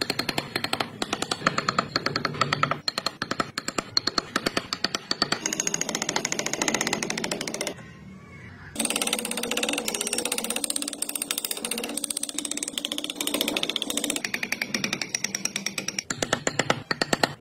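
Carving chisel cutting into wood in rapid, sharp taps, broken by a pause of about a second partway through.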